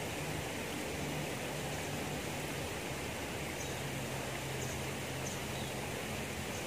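Steady rushing noise with a faint low hum that comes and goes.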